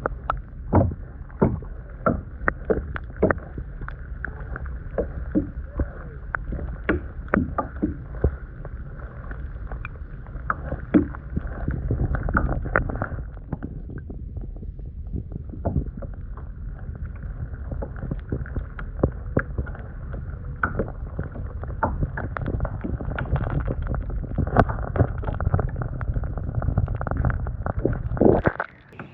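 Kayak under way on a lake: water splashing and irregular knocks of paddle and gear on the hull over a steady low rumble, cutting off abruptly near the end.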